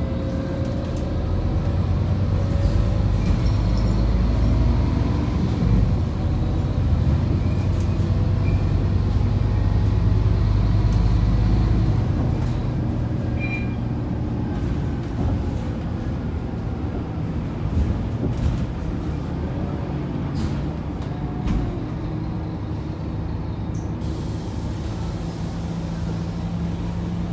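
Scania K230UB Euro 5 bus's rear-mounted five-cylinder diesel heard from inside the passenger cabin. It pulls loudly under load for the first dozen seconds, then eases to a quieter run as the bus rolls on, with occasional light rattles.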